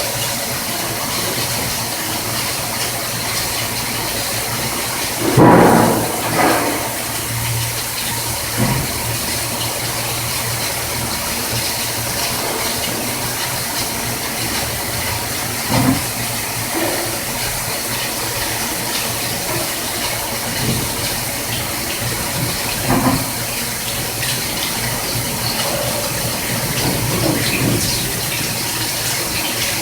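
CNC machining centre running on a stainless steel part, with a steady hiss like flowing coolant and a low hum. A few short louder surges stand out, the loudest about five seconds in.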